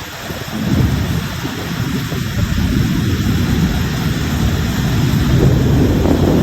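Thunder rumbling over steady rain. The low rumble swells about half a second in and builds to its loudest near the end.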